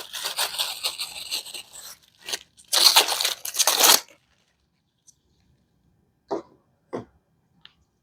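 Packaging handled while items come out of a TV box: crinkling, crunching rustles in two stretches, the second ending about four seconds in. A few short, soft knocks follow near the end.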